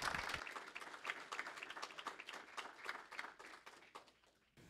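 Congregation applauding, the clapping thinning out and fading away until it cuts to silence near the end.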